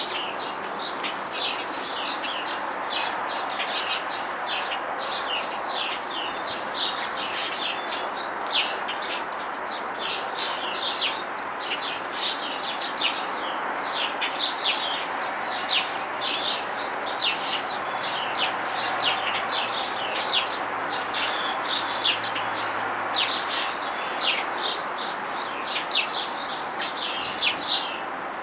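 A flock of house sparrows chirping: many short chirps that overlap and never stop, over a steady background noise.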